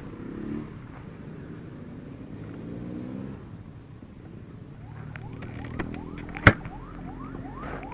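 Kawasaki Z650's parallel-twin engine running low and steady in slow traffic. A faint emergency-vehicle siren with repeated rising sweeps comes in about five seconds in, and a single sharp click sounds shortly after.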